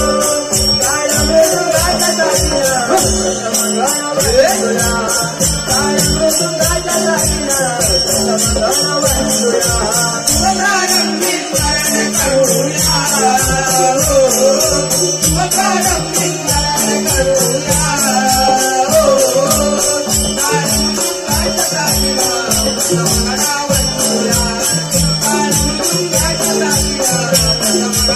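Group singing of a Ganesh invocation in Marathi folk style, with small brass taal hand cymbals clashing in a steady, even rhythm and a mridang drum keeping the beat.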